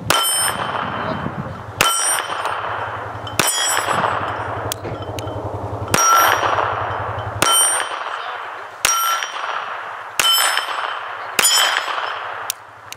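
Taurus PT22 Poly .22 LR double-action-only pistol fired at a steady pace, about ten shots roughly every second and a half. Most shots are followed by the clang and fading ring of a steel target plate, and a few are short cracks without the ring. The pistol cycles through the magazine without a malfunction.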